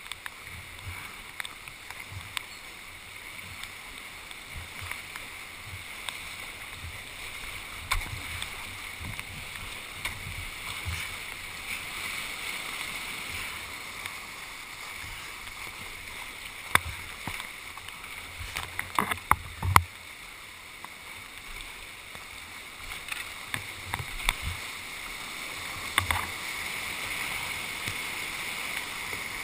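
Whitewater rapids rushing around a kayak running down a river gorge, a steady rush of water with scattered sharp knocks and splashes, most of them bunched about two-thirds of the way through.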